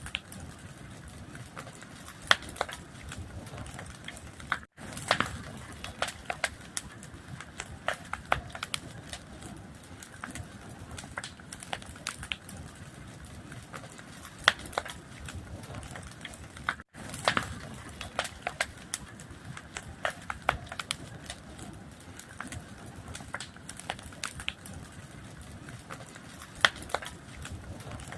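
Fire crackling: a steady hiss with frequent, irregular sharp pops, broken by two very brief drops to silence, about five seconds in and again past the middle.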